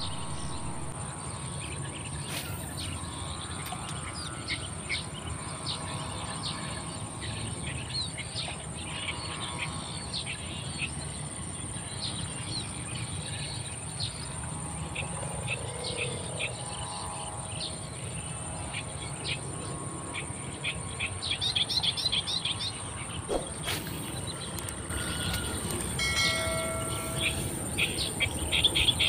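Outdoor nature ambience: a steady high insect drone over a low steady rumble, with many short bird chirps that grow busier about 21 seconds in and again near the end, and a few whistled bird notes about 26 seconds in.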